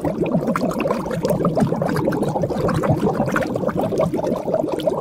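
Bubbling water sound effect: a dense, steady stream of quick, rising bubble blips.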